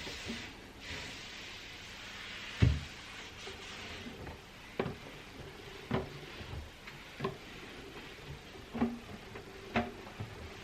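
Household items being handled and set down in a pantry: a short stretch of rubbing noise, one loud thud about two and a half seconds in, then light knocks and clicks about once a second.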